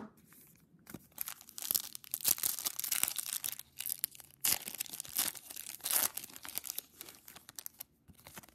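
Foil wrapper of a 2007 Playoff Contenders football card pack being torn open and crinkled by hand: a dense run of crackling from about a second in until near the end.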